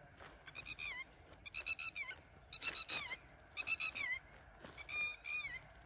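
A bird calling five times, about a second apart. Each call is a short, high-pitched run of notes that ends in a downward slide.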